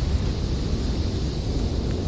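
Howling blizzard wind blowing steadily, a deep rumble with a hiss above it.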